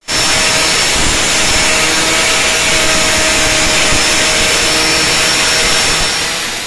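Electric angle grinder fitted with a sanding head, running steadily at full speed with a high whine as it sands carved teak wood, abrasive rubbing against the wood.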